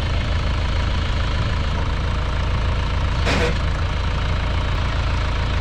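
Farm tractor engine idling steadily, with a short hiss about three seconds in.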